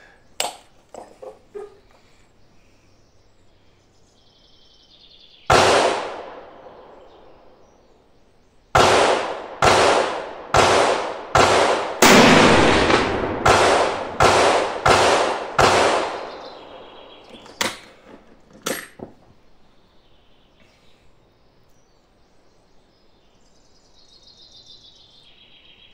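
Rifle shots echoing under a covered firing range: a single shot about five seconds in, then a rapid string of about a dozen shots, roughly three every two seconds, too fast for a bolt-action rifle, followed by two more shots.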